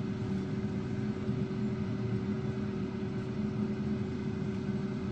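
Kumtel HAF 02 digital air fryer running empty at 80 °C, its fan blowing air out the back with a steady hum that keeps going just after it has been switched off at the panel.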